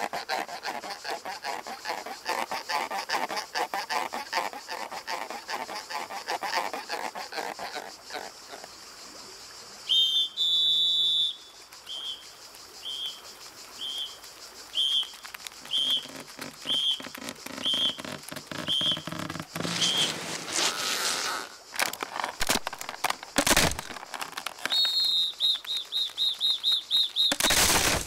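Soundtrack effects: short, high, bird-like chirps repeated about once a second, then bursts of rushing noise and a quick run of chirps near the end.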